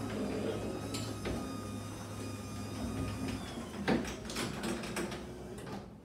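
Electric garage door opener running, raising a sectional steel garage door along its tracks: a steady motor hum with a few clicks and rattles from the door panels. It stops just before the end as the door reaches fully open.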